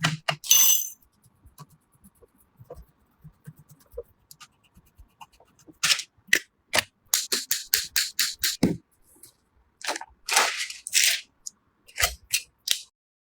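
Irregular series of sharp clicks, snaps and short hissy scraping sounds, as of hard parts being handled and fitted. The sounds are sparse and faint for the first few seconds and come thick and fast from about six seconds in.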